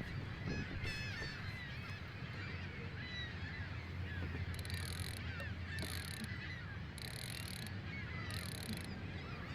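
A flock of geese honking and calling over the water, many overlapping calls. About halfway through, a few short bursts of hiss come roughly a second apart.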